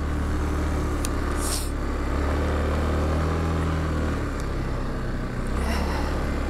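Yamaha Kodiak 450 ATV engine running under throttle as it is ridden, the engine note swelling a couple of seconds in and dropping briefly near the end. Two short hissing rushes break in over it.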